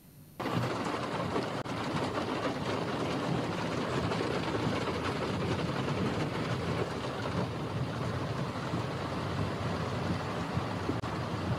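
Floodwater rushing through a street: a steady, noisy rush that starts about half a second in.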